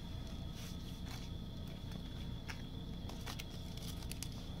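Trading cards being handled and sorted by hand: scattered soft clicks and rustles of card stock, coming closer together near the end, over a faint steady hum.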